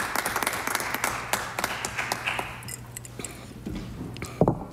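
Scattered applause from members in the legislative chamber, many separate claps dying away over the first three seconds. Then a single knock near the end.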